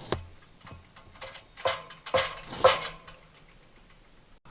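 A series of about six sharp, hard knocks and clanks, irregularly spaced roughly half a second to a second apart, several with a brief ringing tail.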